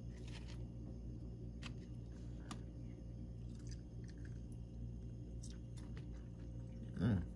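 Steady low electrical hum in a small room, with a few faint clicks and light handling noises as slices of bologna on a paper plate are touched. A brief murmur of voice comes near the end.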